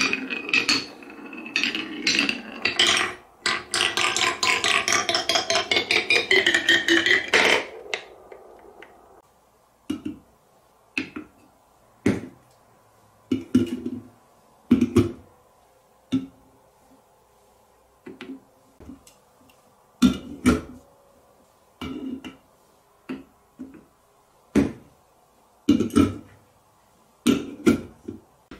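A marble rolls and rattles around a round wooden tray for about seven and a half seconds, its pitch wavering as it circles, then stops abruptly. After that come single clinks and knocks, one every second or two, as aluminium drink cans are set down and stacked on top of each other.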